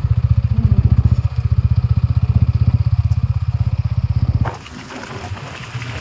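Motorcycle engine running at a steady pace with a regular low pulsing beat. About four and a half seconds in it cuts off abruptly, leaving a quieter low rumble.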